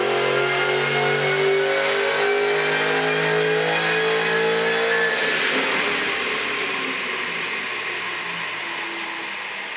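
2003 Mustang Cobra's supercharged 4.6-litre V8 with a Magnaflow cat-back exhaust pulling hard at full throttle on a chassis dyno, its note climbing slowly in pitch. About five seconds in the steady engine note breaks up into a noisy rush that fades away as the run ends.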